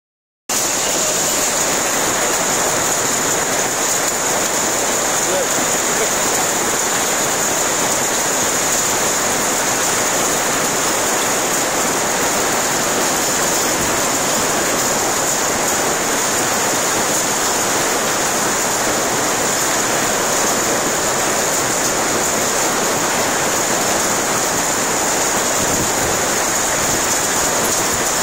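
Heavy hail falling with rain: a loud, dense, steady hiss of hailstones and raindrops striking the ground and surroundings, starting abruptly about half a second in.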